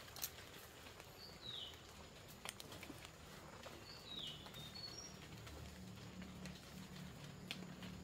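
Footsteps crackling through dry leaves and twigs on a forest floor, with scattered small snaps. A bird gives a short falling call twice, about a second in and about four seconds in, and a low steady hum comes in a little past halfway.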